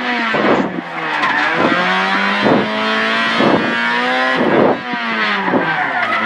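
Rally-prepared Honda Jazz engine heard from inside the cabin, revving hard with its note climbing and dropping back about once a second as the car is driven flat out through tight turns on asphalt.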